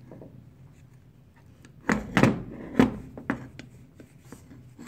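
Knocks and clunks of a rusty vintage Roper Whitney No. C7 hand punch being handled and turned over: four or five sharp knocks come close together from about two seconds in, after a quiet start.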